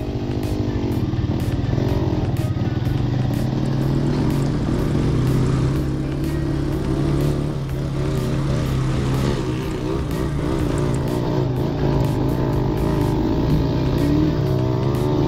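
Motorcycle engine running steadily at low speed on a dirt trail, heard from on the bike itself, with small rises and falls in revs.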